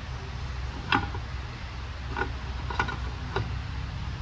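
Metal parts of an Eaton Fuller transmission shift top clicking and knocking together as a piece is fitted into the housing by hand: four sharp clicks, the loudest about a second in. A steady low hum runs underneath.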